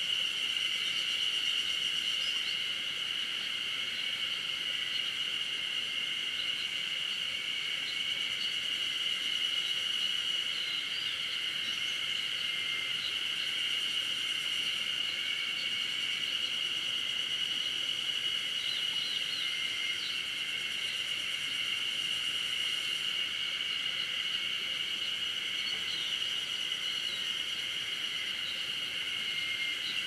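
Steady insect chorus in summer forest: an unbroken high-pitched drone that holds one pitch, with a fainter tone just below it.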